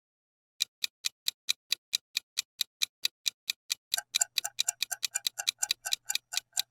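Countdown-timer clock ticking sound effect: sharp, even ticks at about four a second. About four seconds in they speed up to roughly twice as fast, and a faint low hum comes in under them.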